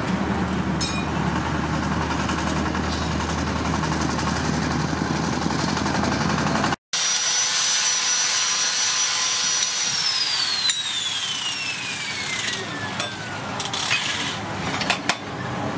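Street noise with traffic, then a steady high power-tool motor whine that winds down in pitch over about three seconds. Near the end come a few clinks of scrap steel pieces being shifted in a pile.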